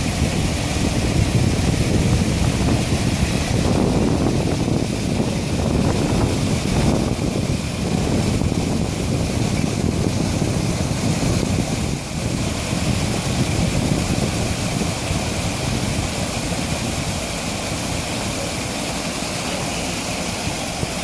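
Water pouring down an artificial waterfall: a steady rushing noise, heaviest in the low range, with slight swells in the first half.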